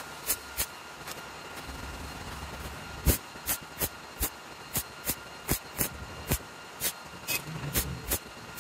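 MIG welder arc striking on a steel tube's end-cap joint in short stitch bursts: a series of sharp crackling zaps, about two to three a second from about three seconds in, with a slightly longer sputter near the end. A faint steady hum runs underneath.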